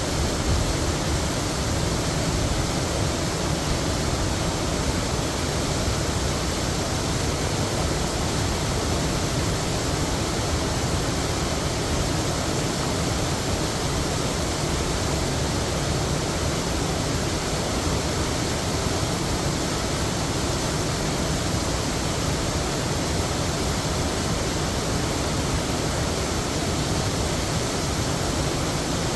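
Heavy waterfall: a steady, full roar of falling water, unchanging throughout.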